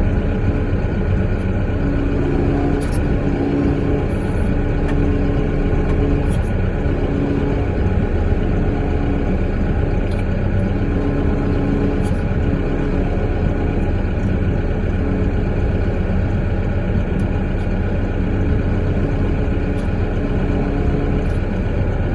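Caterpillar 420 backhoe's diesel engine running steadily with a constant, even drone.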